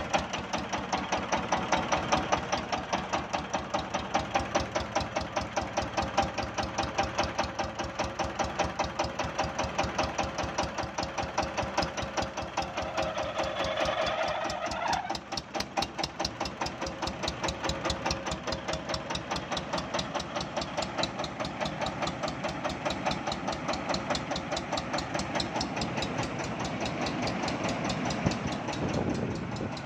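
Yanmar TS230R single-cylinder diesel engine running steadily with an even knocking beat, turning the V-belts and pulleys of a rice milling machine. A higher whine from the machinery drops away about halfway through.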